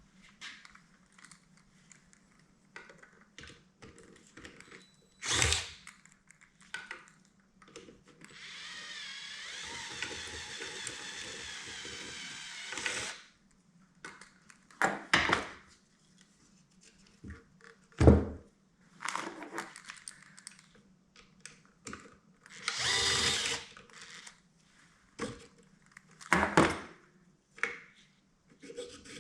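A power drill/driver runs steadily for about four and a half seconds, backing out a screw from the Whirlpool GC2000XE garbage disposal housing. Around it come clinks and knocks of tools and metal parts, the loudest knock about eighteen seconds in, and a shorter, noisier burst later on.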